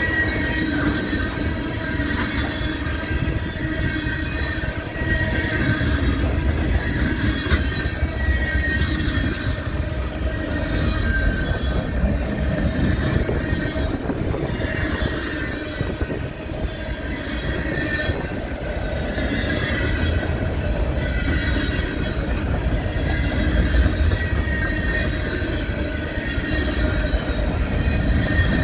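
A train rolling past with a steady low rumble of its cars, and the wheels giving off a wavering high squeal on the rails.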